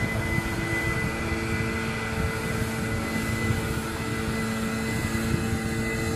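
Gas-powered backpack leaf blower running steadily as it blows leaves, a constant engine drone with a steady whine over rushing air.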